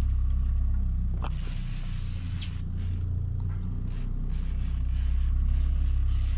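Charter fishing boat's engine running steadily, a continuous low drone, with a high hiss that comes and goes over it.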